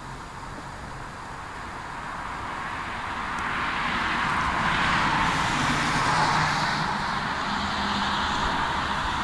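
A car passing on the road: tyre and engine noise swells to a peak about halfway through, then stays fairly loud as it goes by.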